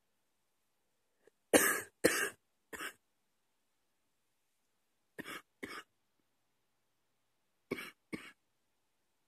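A woman coughing in short fits: three coughs in quick succession about a second and a half in, the first the loudest, then two quieter pairs of coughs a few seconds apart.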